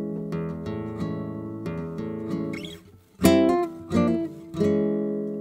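Acoustic guitar playing ringing chords that die away almost to nothing about three seconds in, followed by a sharp strummed chord, the loudest moment, and two more chords after it.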